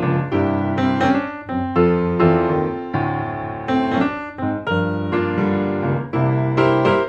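Background instrumental music on piano: struck notes and chords one after another at an easy pace, each ringing and fading before the next.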